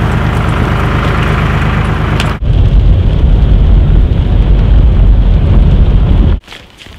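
A forestry tractor's engine runs steadily close by. About two and a half seconds in, it gives way abruptly to the loud low rumble of a car driving, heard from inside the cabin, which cuts off suddenly near the end.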